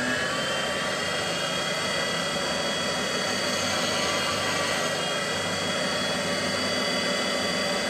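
Thor valve grinding machine's electric motor and wheel running at full speed just after switch-on: a steady whine with several high tones that finish rising and settle right at the start.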